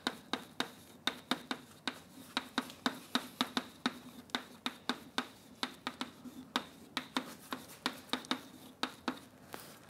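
Chalk writing on a blackboard: a run of short, sharp taps and scratches, about three or four a second, as the strokes of a formula are laid down.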